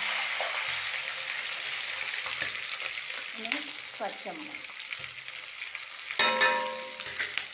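Chopped ginger and curry leaves frying in hot oil in a metal wok, an even sizzle that slowly fades. A little past six seconds in, a steel plate knocks against the wok with a loud ringing clang as chopped green chillies are tipped in.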